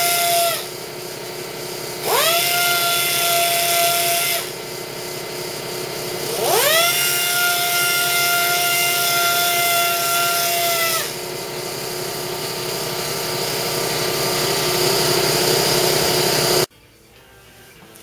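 Right-angle pneumatic polisher with a small foam pad buffing a freshly color-sanded painted panel. It runs in spells with a high whine that rises as it spins up, twice, and in between a lower hiss. It cuts off suddenly near the end.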